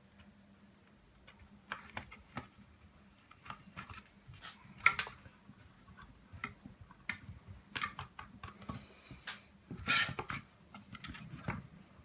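Irregular small clicks, taps and knocks of hands fitting a DVR module into the plastic housing of FPV goggles, with a sharper knock about five seconds in and a cluster of louder clicks around ten seconds, over a faint steady hum.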